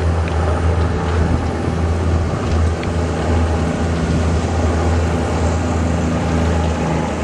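Heavy diesel engine of a Komatsu D155W bulldozer running steadily, a low unbroken hum under a rough wash of noise.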